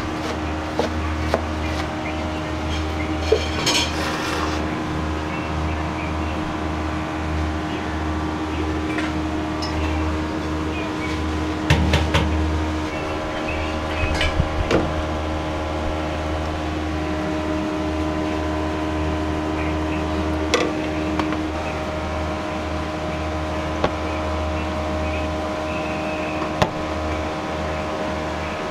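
Steady hum of kitchen equipment and fans, with scattered clinks and knocks of a knife on a cutting board, a ladle in a sauce pan and plates on a steel counter.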